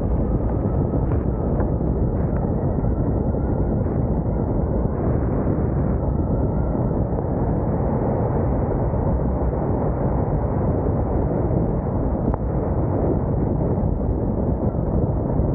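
Steady, muffled wind rush and road noise on a roof-mounted camera of a car driving on a wet road.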